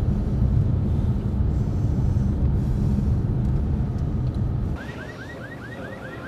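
Steady low road and engine rumble inside a moving car's cabin. Near the end the rumble cuts off and a quieter, rapid rising chirp begins, repeating about four times a second.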